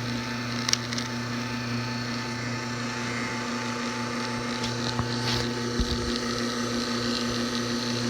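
Marathon 3/4 HP carbonator motor driving a brass rotary vane water pump, running with a steady hum and hiss as its pressure is raised. A few light clicks come about a second in and again around five seconds.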